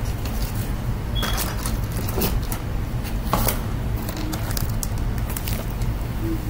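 Scattered soft knocks and rustles of craft supplies, such as cardboard jewelry boxes, being handled and set down, over a steady low hum.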